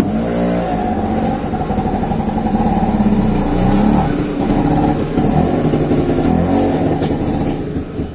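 A motor running continuously, its pitch repeatedly rising and falling, easing off near the end.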